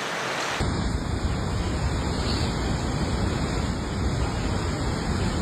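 Rushing floodwater with a low wind rumble on the microphone, cutting in abruptly about half a second in after a thinner hiss of rain or running water.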